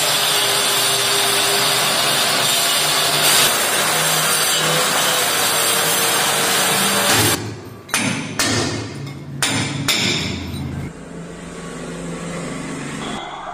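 Electric power tool running hard against a masonry wall, cutting a channel for concealed plumbing, a dense steady noise that stops about seven seconds in. A few separate knocks follow over a quieter background.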